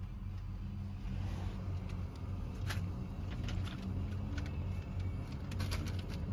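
Low steady rumble of a train approaching a grade crossing, with a few faint sharp clicks in the second half.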